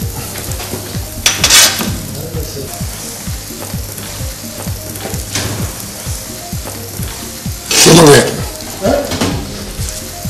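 Food sizzling in a hot pan while a utensil stirs and scrapes it, with many small clicks of the spoon against the pan. There is a short, louder burst about eight seconds in.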